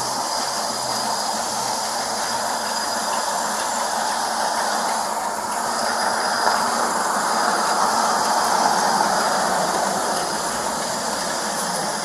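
Steady outdoor street noise, a rushing hiss that swells about halfway through and fades again, as a car drives past on the road.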